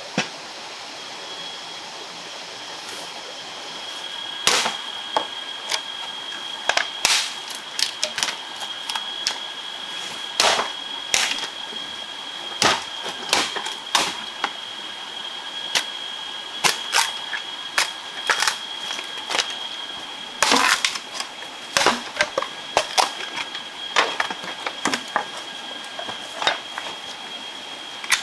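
Irregular sharp knocks and clicks, roughly one or two a second, from a knife striking and cutting wood, over a steady high-pitched insect drone.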